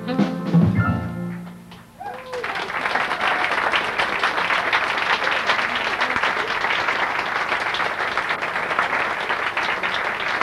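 The final chord of a jazz band ends with drum and cymbal hits and fades away over about two seconds. Then the audience applauds steadily for the rest.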